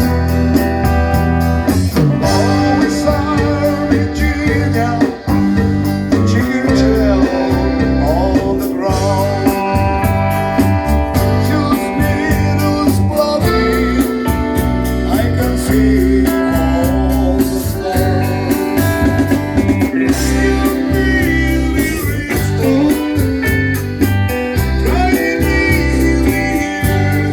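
Live band music: a singer over guitar and a steady beat.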